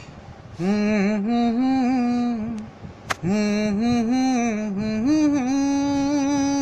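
A man humming a slow, wordless melody in two phrases with no accompaniment, the second ending on a long held note. A sharp click falls in the short gap between the phrases, about three seconds in.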